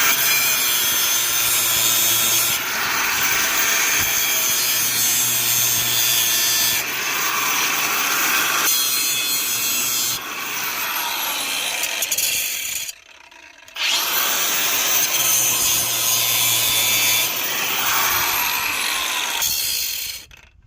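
A handheld power tool grinding and cutting at the sides of a stripped metal screw head to square it off, running in several long passes. It stops briefly about 13 seconds in, then starts up again.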